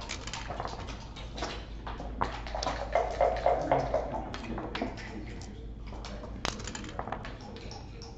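Backgammon checkers clicking and clacking against the board and each other as a player picks them up and moves them, a run of small knocks with one sharper click about six seconds in.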